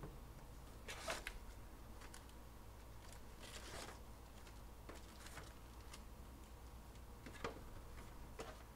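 Faint crinkling and rustling of foil-wrapped trading card packs being pulled from a cardboard hobby box and set down in a stack, in a handful of short bursts, the longest one near the middle.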